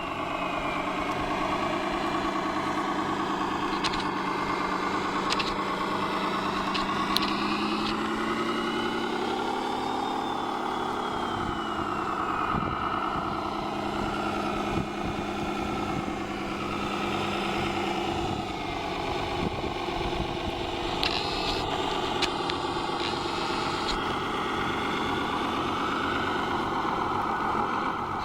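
Radio-controlled model trucks running: a thin motor whine rises and falls slowly in pitch as the trucks speed up and slow down, over a steady low hum, with a few scattered clicks.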